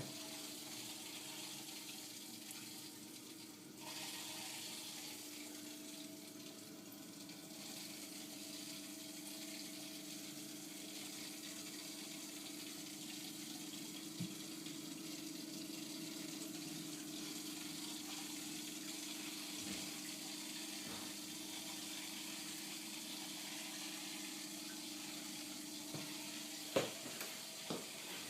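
Steady hiss of water flowing through a Keston gas boiler's pipework, with a low steady hum underneath. A few sharp clicks come near the end.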